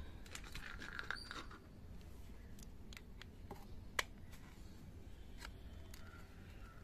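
A small screwdriver tip scratching and prying at the seam of a plastic cordless phone handset's case, with faint scrapes and a few small clicks of the plastic. The sharpest click comes about four seconds in.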